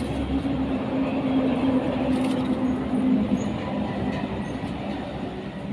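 A motor's steady low hum and rumble, its pitch dropping slightly about halfway through.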